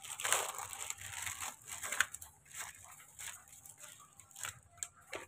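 Clear plastic pouch crinkling and rustling as it is pulled open and handled, in irregular bursts that are busiest in the first couple of seconds and then grow sparser.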